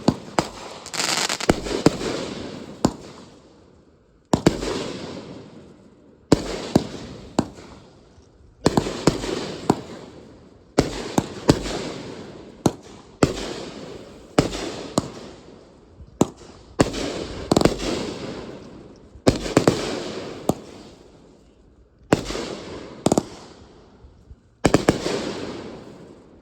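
Consumer fireworks going off in a rapid series of sharp bangs, about one every one to two seconds. Each bang trails off in a fading crackle and rumble before the next.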